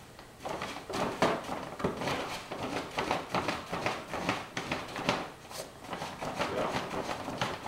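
Paper bag rustling and crinkling in quick, irregular crackles as a cat shifts around with its head inside it, starting about half a second in.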